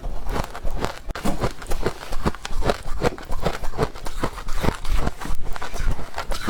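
Close-miked chewing of powdery freezer frost (snow ice): dense, irregular crunches, several a second.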